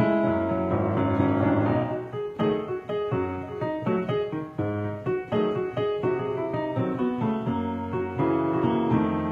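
Blues played on a digital piano: chords and melody over a bass line, with a fast flurry of notes in the first couple of seconds, then separately struck chords.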